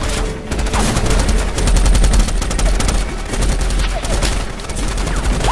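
Heavy automatic gunfire from many weapons at once, rapid shots running together without a break, over a constant low rumble.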